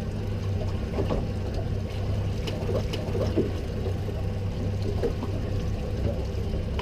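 A boat's engine running steadily with a low hum, with water rushing and splashing along the hull.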